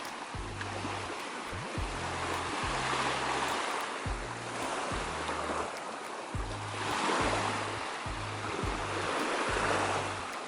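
Sea waves washing in slow swells, rising and falling every few seconds, with background music carrying a deep bass beat underneath.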